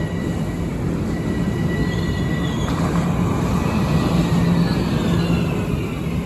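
LIRR M7 electric multiple-unit train running, a steady rumble with high whining tones, some holding steady and some sliding in pitch.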